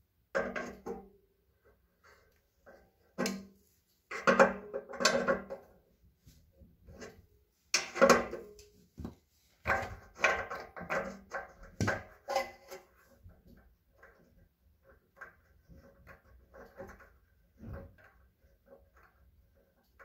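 Hand-tool work on a radiator valve: irregular short creaks, clicks and clunks as pliers tighten the valve's gland nut and the valve head is turned, loudest in the first twelve seconds and fainter after.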